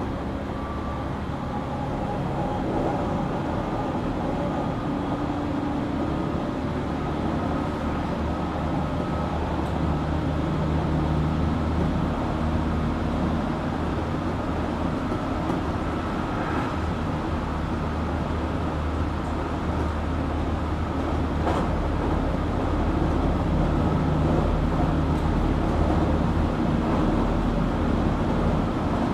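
Running noise inside a JR Kyushu 817 series electric train: wheels on rail with a low motor and gear hum whose pitch shifts, growing a little louder about two seconds in and again later. This unit is an odd-sounding car whose running sound is likened to a Keio 7000 series.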